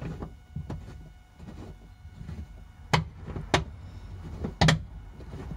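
Sharp clicks and knocks of a metal M10 tie-down hook being handled and turned in its plastic cover plate on a car's interior trim panel. The loudest come about three, three and a half and nearly five seconds in, over a low steady rumble.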